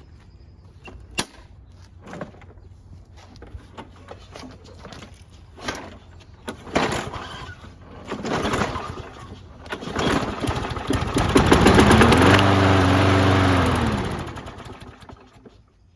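Craftsman lawn mower's 6.75 Briggs & Stratton engine being cranked to start. After some clicks and short bursts, it turns over loudly for about four seconds in the second half, its pitch rising and then falling as it dies away without keeping running. It won't start, which the owner puts down to carburetor issues.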